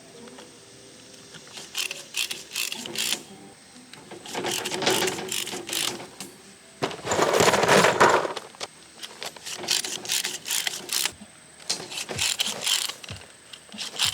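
Rebar being tied with wire using a pull-type rebar tie twister: a series of sharp metallic clicks and rattles, with a louder burst of rattling about seven seconds in.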